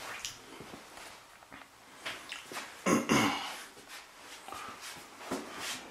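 Scattered footsteps and handling rustles of a person walking through a small tiled bathroom, with the loudest cluster about three seconds in.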